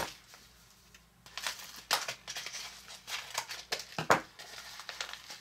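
Crinkling and tearing of the cookie-crumb mix packet as it is opened and emptied. Scattered crackles begin about a second in, with a sharper crackle about four seconds in.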